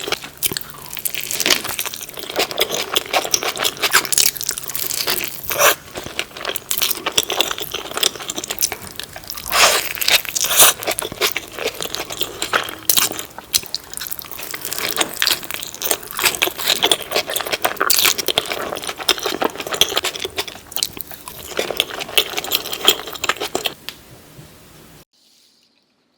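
Close-miked eating sounds: a person biting and chewing a large burrito, with dense irregular crunching and crackling. The sound stops abruptly near the end.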